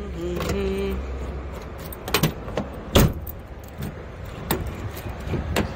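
A bunch of car keys jangling, with sharp clicks at the car's door handle as the car is closed up: two loud clicks about a second apart near the middle and softer ones later.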